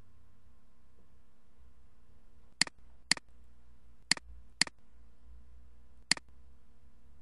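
Computer mouse clicks: five sharp clicks, two pairs about half a second apart and then a single one, over a faint steady low hum.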